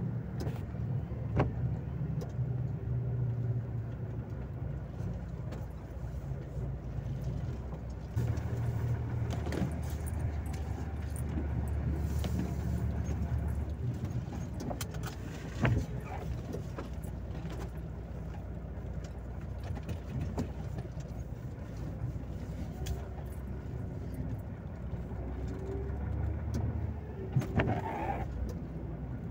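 Volvo FH 460 truck's diesel engine heard from inside the cab, running steadily as the truck moves slowly. The engine grows louder at about eight seconds and eases off a few seconds later. Light clicks and rattles come and go, with a brief rising sound near the end.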